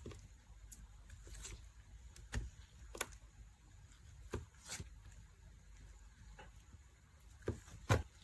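Irregular soft clicks and crackles of a squishy stress-relief toy being squeezed and handled, with a sharper double click near the end.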